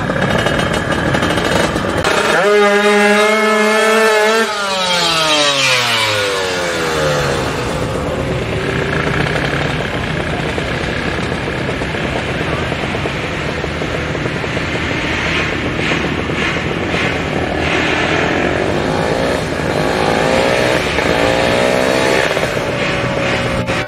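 Drag-racing motorcycle engine revving hard at high pitch from a launch a couple of seconds in, then dropping in pitch as the bike pulls away down the strip. Near the end a bike comes by, its pitch rising and then falling as it passes.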